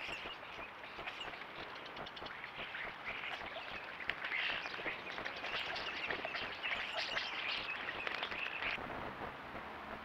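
A flock of common starlings chattering and calling together, with wing flaps and splashes as they bathe. The chatter builds from about three seconds in and stops abruptly near the end.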